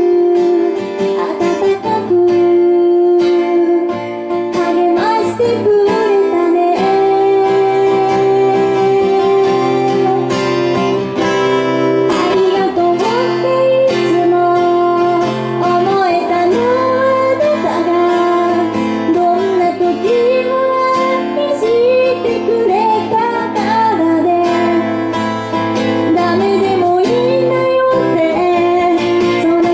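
A woman singing a song while strumming her own acoustic guitar, performed live.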